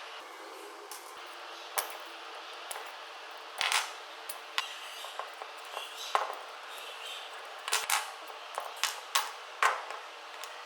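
Irregular sharp clicks and knocks of a tool and small metal parts being handled, as the nut, gear and bearing are taken off an old angle grinder armature, over a faint steady hum.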